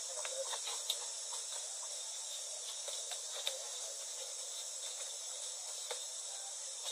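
Steady high-pitched drone of an insect chorus in the forest canopy, with a few faint scattered clicks and snaps.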